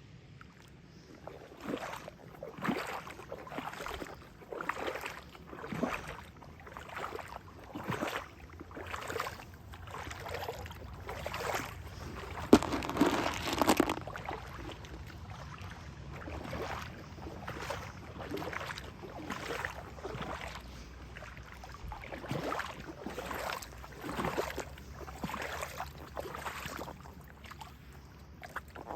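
Footsteps wading through floodwater: a splash and slosh with each stride, about one a second, with a bigger splash about halfway through.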